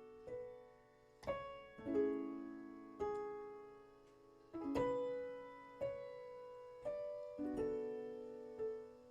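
Gentle solo piano music: slow, soft chords and single notes, each struck and left to fade.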